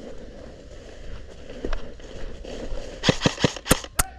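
Footsteps rustling through forest undergrowth, then a quick, uneven string of about five sharp airsoft gun shots near the end.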